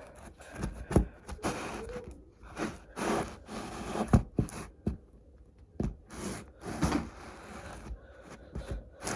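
Objects being handled on a table: irregular scraping and rubbing with scattered clicks and knocks.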